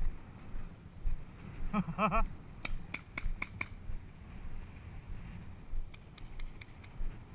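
Paintball markers firing a quick string of about five sharp shots, just after a short shout, with a few fainter shots near the end. Low knocks and rumble of movement on the microphone run underneath.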